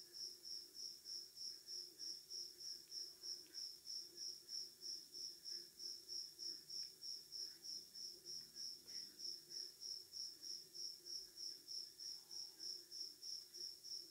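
A cricket chirping steadily, about three chirps a second, with a few faint clicks of small parts being handled.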